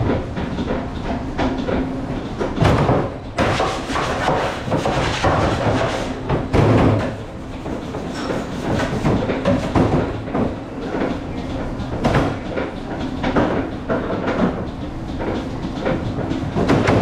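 Busy restaurant kitchen clatter: many knocks and bangs, like doors, cupboards and pans, over a steady background hum.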